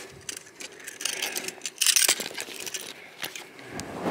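Scattered light clinks, clicks and rustling as a hand-held fish scale is brought out and fumbled with to weigh a bass.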